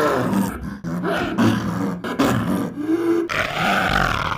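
Homemade Bigfoot sound effect: deep, voice-like growling calls made by a person, several in quick succession with brief breaks, the last a longer call that rises and falls near the end.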